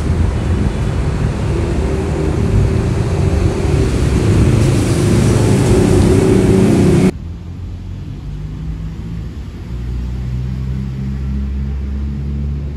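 Wind buffeting a phone's microphone outdoors: a loud, rough rumble that cuts off abruptly about seven seconds in, leaving a quieter steady low rumble.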